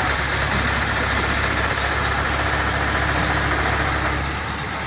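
Mobile crane's diesel engine running steadily with a low hum as it lifts a heavy wooden crate, easing off about four seconds in.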